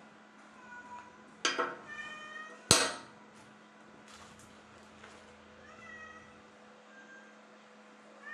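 A cat meowing repeatedly in short pitched calls. A single sharp knock about two and a half seconds in is the loudest sound, and a steady low hum runs underneath.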